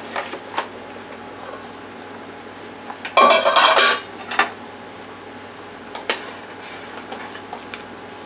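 Stainless steel pot lid set down on a countertop, clattering and ringing for most of a second about three seconds in, with a second clink just after. Later a few sharp clinks of a metal spoon against the steel pot as the simmering chowder is stirred.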